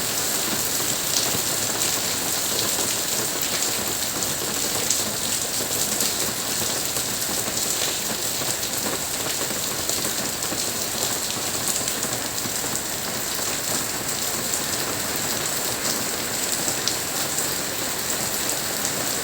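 Steady heavy monsoon rain falling and pattering on surfaces, a dense even hiss with many fine drop ticks.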